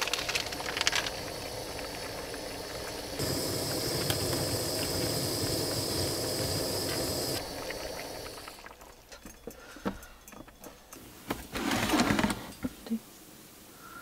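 Small camping gas stove burning under an aluminium mess tin of bubbling udon broth: a steady hiss that grows louder about three seconds in and stops about eight and a half seconds in, when the flame is shut off. Light metallic clicks and clinks of cookware follow, with a brief louder clatter near twelve seconds.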